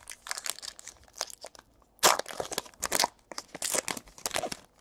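Crinkling and rustling of trading cards and their packaging being handled by hand: a run of irregular scrapes and crackles, loudest about two and three seconds in.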